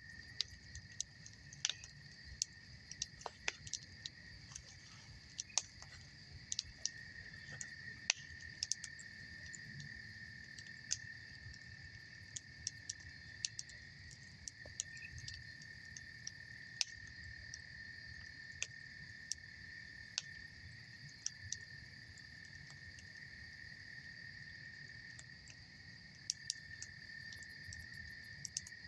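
Wood campfire crackling, with frequent sharp, irregular pops and snaps, over a steady high trill of insects.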